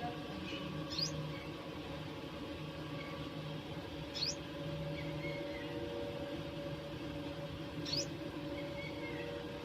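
Sparrows chirping: three short, high, sweeping chirps spaced a few seconds apart, with a few fainter notes between, over a steady low hum.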